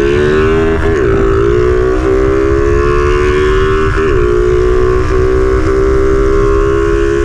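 Honda XRM 125 motorcycle's single-cylinder engine, fitted with a 57 mm big-bore kit and a performance cam, running at high revs under hard acceleration. Its pitch dips briefly and climbs again about a second in and about four seconds in, as with gear changes.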